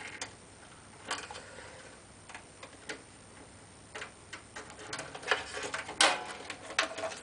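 Irregular clicks and rustles of power supply cables and plastic connectors being handled inside a metal PC case. The clicks are sparse at first and grow busier and louder in the last few seconds.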